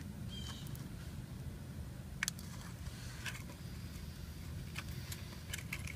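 A few faint, sharp clicks of hands working a plastic oxygen-sensor wiring connector to seat it in its socket, over a steady low rumble.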